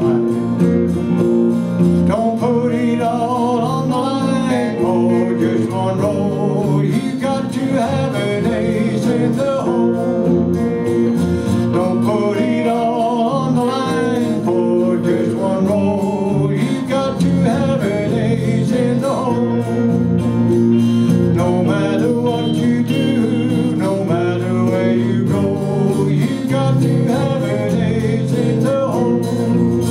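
Live band playing a country-style song on acoustic guitar, electric bass and electric guitar, with a man singing.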